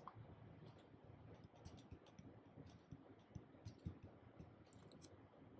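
Near silence with faint, irregular clicks of a stylus tapping on a tablet screen as words are handwritten.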